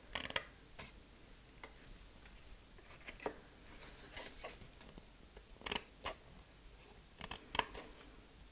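Scissors snipping cardstock in a few short, separate cuts with quiet pauses between them: notching small glue tabs into the edges of a box lid.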